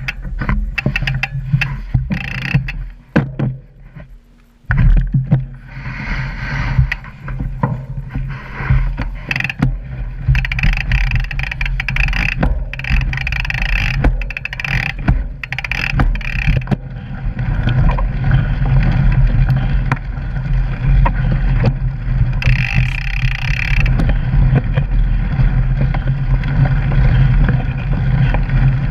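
Mountain bike ridden over rough forest singletrack, heard through a bike-mounted action camera: rattling clicks and knocks from the bike and mount over roots and rocks, with tyre and wind noise. After a short lull about four seconds in, the sound settles into a steadier rushing rumble in the second half.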